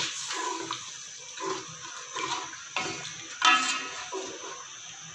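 Spatula stirring a thin, watery masala in a cooking pot: a run of wet sloshing and scraping strokes, with one louder stroke about three and a half seconds in.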